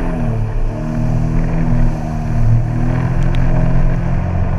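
A motor vehicle engine running steadily, its pitch dipping just after the start and then holding with small rises and falls.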